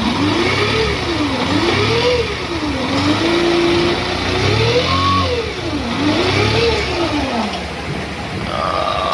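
Bajaj CT 110X single-cylinder fuel-injected motorcycle engine revved up and back down about five times, one rev held for a second, then settling to idle. The engine makes a 'ghoom ghoom' droning and shakes the whole bike, which the mechanic traces to a burnt magneto (stator) coil.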